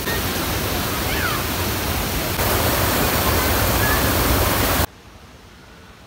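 Waterfall pouring into a plunge pool close by: a loud, steady rush of falling water. It cuts off suddenly near the end, leaving only a quiet background.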